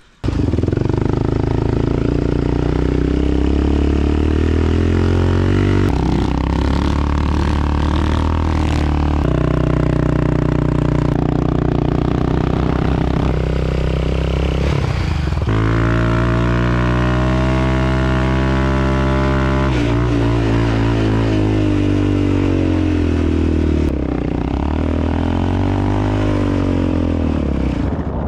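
Quad bike (ATV) engine running hard under heavy throttle. It holds a steady pitch for a few seconds at a time, jumping abruptly to a new pitch several times, then rises and falls near the end.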